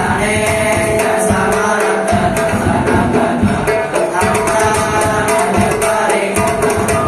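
A group of boys chanting a Sundanese nadhom, a devotional verse sung together in a steady melodic line, over a regular beat of hand drums.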